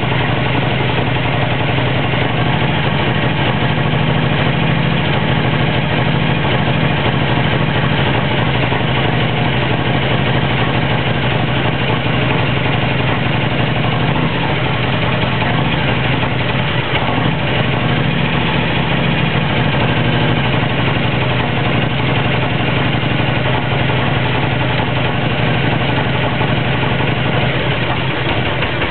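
Harley-Davidson Road King's V-twin engine idling steadily.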